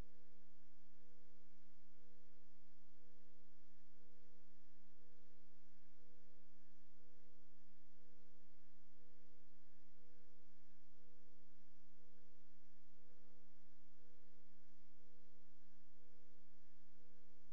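Steady low hum made of several held tones, with a higher beep-like tone pulsing on and off about three times every two seconds, over a soft hiss.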